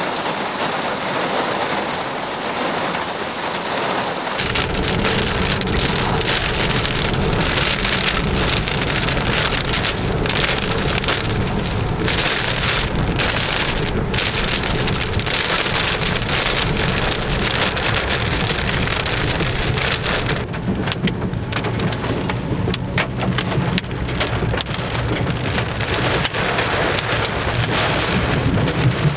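Heavy rain falling steadily, with a deep low rumble joining in about four seconds in.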